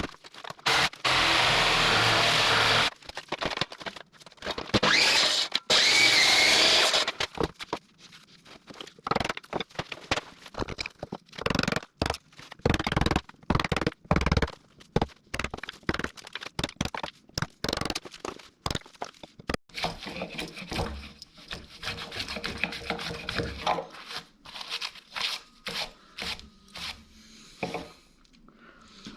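A power saw cuts into an oak beam in two bursts of a few seconds each, then tools scrape and knock irregularly on the wood as the half-lap joint is cleaned out.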